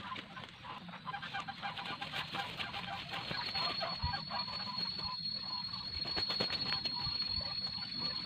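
Backyard poultry calling in short repeated calls, with a steady high-pitched whine coming in about three seconds in.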